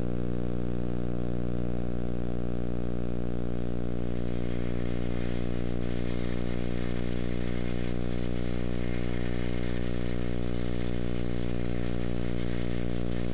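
Steady electrical hum with a dense stack of overtones, unchanging throughout, as picked up on an old VHS tape's audio track.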